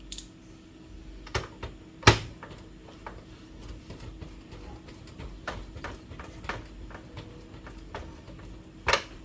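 Scattered light clicks and taps of a screwdriver working screws into a plastic printer cover, with one sharper click about two seconds in.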